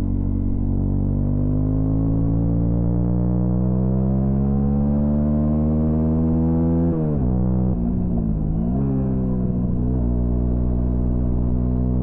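Honda CB125R's single-cylinder four-stroke engine under throttle, its note climbing slowly as the bike accelerates. About seven seconds in the revs drop sharply, dip and come back up over the next couple of seconds, then hold steady.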